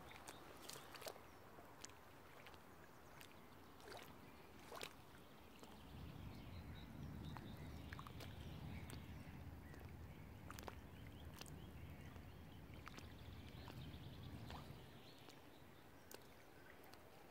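Faint wind ambience by open lake water, with a low wind rumble on the microphone through the middle stretch and a few faint ticks.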